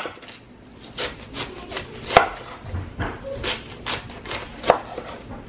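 Chef's knife slicing through a head of green cabbage on a wooden cutting board. It makes crisp cuts at an uneven pace of roughly two a second, the blade knocking on the board at the end of each stroke.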